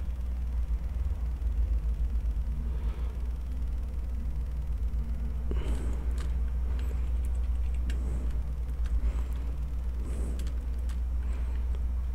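Steady low electrical hum with a constant level, carrying the recording, with a few faint clicks in the second half.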